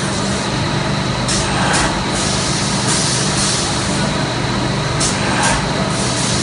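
Seedling-tray production machine running: a steady machine hum under a constant high hiss and whine, with several brief hissing bursts, a few early on and a couple more about five seconds in.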